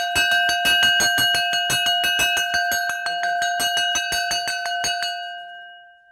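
A metal bell struck rapidly and evenly, about six strikes a second. The strikes stop about five seconds in and the bell rings on, fading out.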